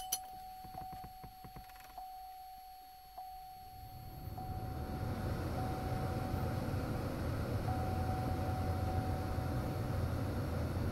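2012 Chevrolet Impala's HVAC blower fan, run with the key on and engine off on a newly replaced blower control module, spinning up about four seconds in and then blowing air steadily. A thin steady tone runs alongside, stopping near the end.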